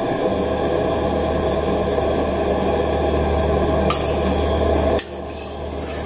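A pot of soup boiling on the stove: a steady, noisy rush with a low hum, and a ladle clinking against the aluminium pot twice near the end.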